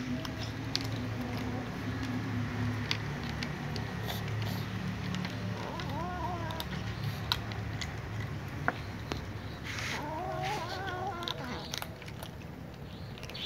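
Cats crunching dry kibble, with scattered chewing clicks throughout, and a cat meowing twice: a short meow about six seconds in and a longer, wavering one around ten seconds in.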